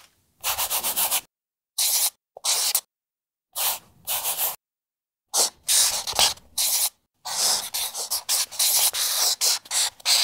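Scratchy scribbling sound effect, like a marker or pencil stroking across paper, in short strokes separated by silent gaps; the strokes come closer together about halfway through.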